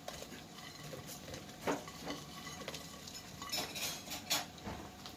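Fried banana pieces tipped from a glass bowl into a wok of toasting flour, with a handful of light clinks and knocks of bowl and spatula against the pan, the loudest about a second and a half in and near the end.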